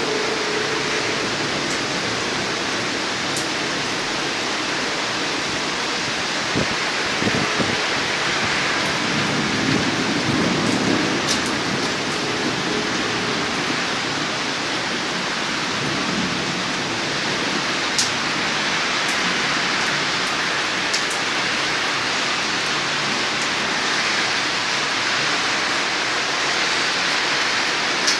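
Heavy thunderstorm rain falling steadily, an even hiss with a few sharp ticks of drops striking close by.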